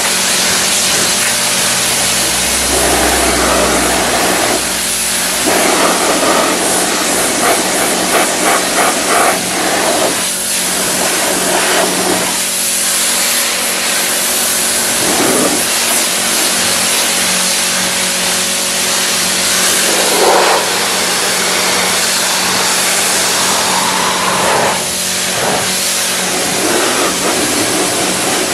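Pressure washer running: a loud, steady hiss of the water jet on the car's mud-caked door panels and windows, over the pump's steady hum, with the spray note surging now and then as the jet moves across the panels.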